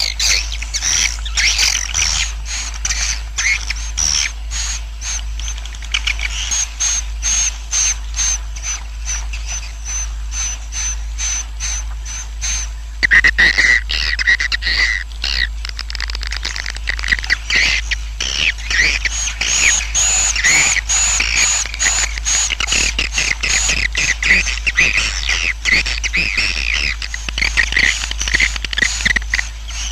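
Swiftlet colony roosting call, a swiftlet-house lure sound: dense twittering chirps from many swiftlets mixed with rapid clicking. It grows fuller about halfway through, over a steady low hum.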